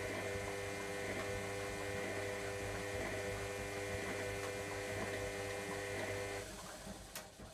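Electra AWF683 washing machine humming steadily after its spin, a pump or valve running as the machine moves into its sump fill. The hum cuts off about six and a half seconds in, followed by a sharp click.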